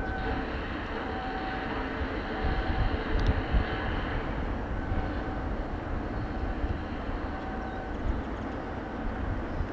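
Shipyard ambience: a steady mechanical rumble with gusts of wind on the microphone. Short, faint, steady tones repeat about once a second, like a warning beeper.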